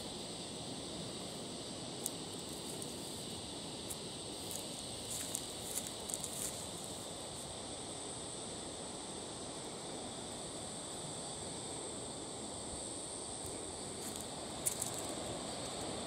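Steady rush of river rapids under a continuous high insect drone. A few light footfalls of bare feet on sand and rock come through, clustered a few seconds in and once near the end.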